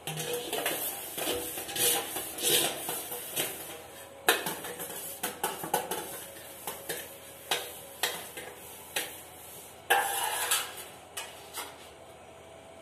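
Stainless steel plates, pots and bowls clinking and clattering against one another as they are washed by hand, with irregular sharp knocks. The clatter dies down in the last second or so.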